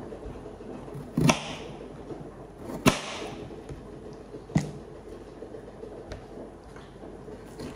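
Kitchen knife cutting a peeled potato into chunks on a cutting board: three sharp knocks against the board, the first two followed by a short scraping hiss, over a faint steady hum.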